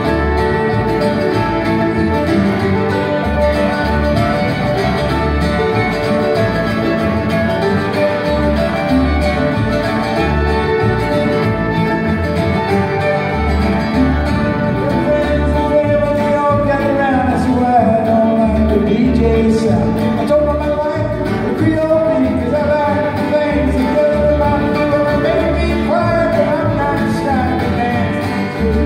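Live acoustic string band playing a country-style song: fiddle, acoustic guitar and mandolin over a plucked upright bass keeping a steady beat.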